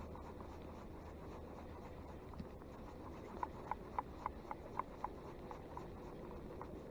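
Fishing reel clicking as it is worked, a run of about nine light clicks at about four a second, over a low steady outdoor background.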